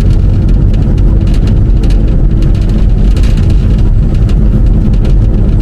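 Loud, steady low rumble of engine and road noise inside a moving car's cabin, with scattered small knocks and rattles.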